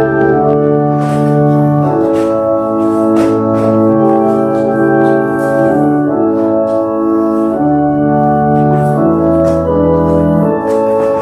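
Organ playing slow, held chords that change every second or two.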